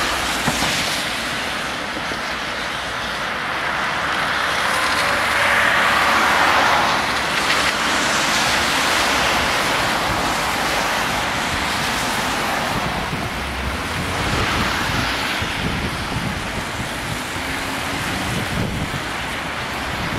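Road traffic on a wet, slushy road below: a steady hiss of tyres that swells and fades as vehicles pass, with wind buffeting the microphone.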